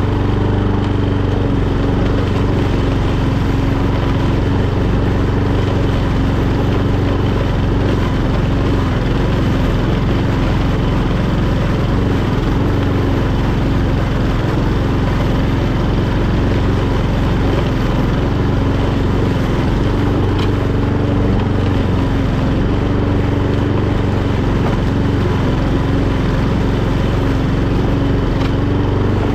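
Etesia Pro46 walk-behind mower's Honda GCVx170 single-cylinder four-stroke engine running steadily while mowing, holding an even drone with no change in speed.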